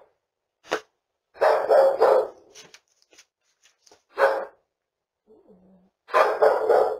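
A dog barking in several bouts: a single bark a little under a second in, a run of barks around two seconds, another bark about four seconds in and a second run near the end.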